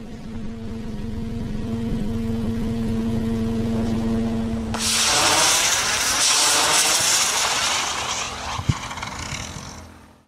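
Electric tethered model helicopter's rotor and motor humming with a steady pitch, then about five seconds in a loud rushing hiss of model rockets firing takes over, with a single sharp click near the end.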